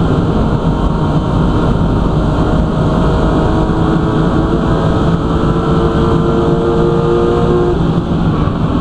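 BMW M3 racing saloon's engine running hard at steady revs, heard from inside the cockpit as a loud, even drone over a dense rumble.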